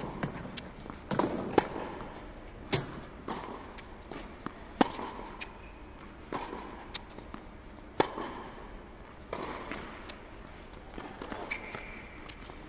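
Tennis ball being struck by racquets and bouncing on a hard court during a rally, a sharp pock about every second, irregularly spaced, echoing in a large indoor tennis hall. A short high squeak near the end.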